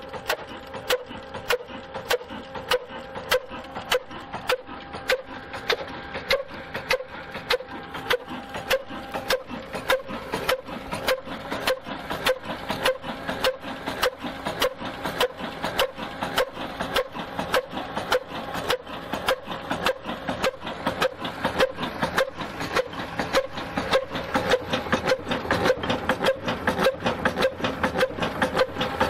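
Old horizontal black oil (heavy-oil diesel) stationary engine running steadily, a slow, even beat of sharp knocks from each firing stroke over a constant mechanical hum.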